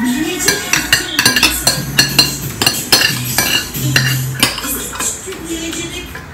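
Spoons and a fork clinking and scraping against plates while eating: many quick clinks close together, thinning out after about four and a half seconds.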